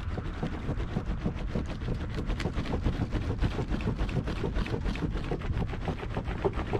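Rapid, irregular crackling and rustling over a low rumble: handling and movement noise as the camera is moved about under the deck.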